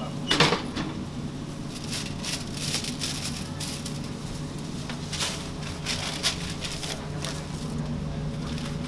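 Crinkling and rustling of aluminium foil and paper wrappers, with light knocks, as grilled chicken wraps are lifted off a foil-covered contact grill and wrapped. A sharp knock comes about half a second in. Under it runs a steady low hum of kitchen equipment.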